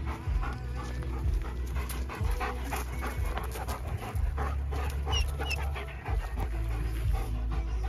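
A dog panting close to the microphone, steady quick breaths at about three a second.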